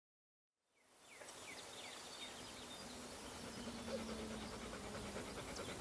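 Summer meadow ambience fading in about a second in: insects trilling in a steady high-pitched drone, with faint chirps over it.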